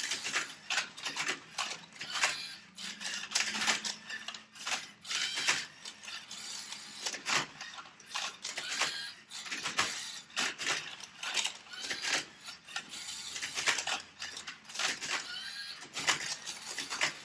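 Rubik's cubes clicking and clacking irregularly and rapidly as they are turned: one twisted fast by hand, and others turned and tilted by two LEGO Mindstorms Mindcuber robots, whose motors whir now and then.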